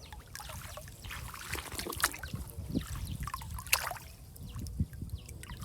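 Water splashing and trickling, with irregular small splashes and knocks.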